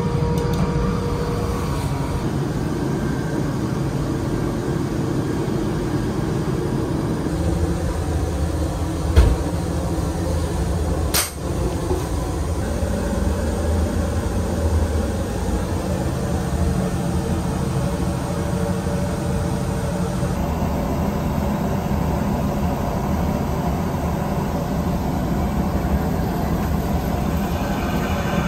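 Steady rumble and hiss of a Joetsu Shinkansen Toki bullet train running, heard from inside the train, with a sharp knock about nine seconds in and a click a couple of seconds later.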